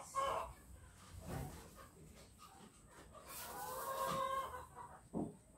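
A faint, drawn-out animal call held for about a second, a little past the middle, with a single short knock near the end.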